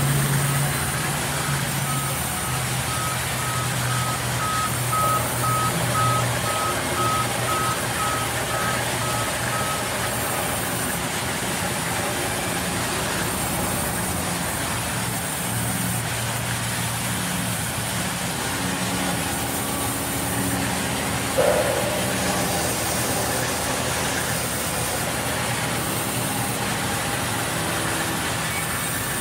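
Large sawmill band saw running and cutting wooden planks, a dense, steady machine noise. For about the first ten seconds a rapid high beeping sounds over it, and a single short loud knock comes about two thirds of the way through.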